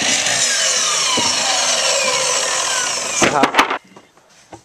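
Electric miter saw running through a wooden board, its whine falling steadily in pitch as the blade winds down. About three seconds in, a few sharp knocks, and then the saw sound stops.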